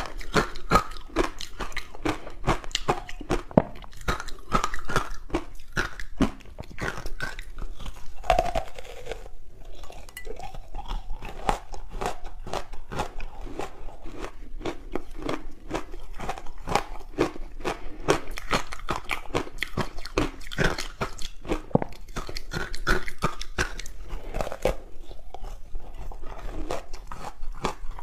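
Close-miked biting and chewing of soft frozen green barley ice balls: a dense run of crackling, crunching bites and chews.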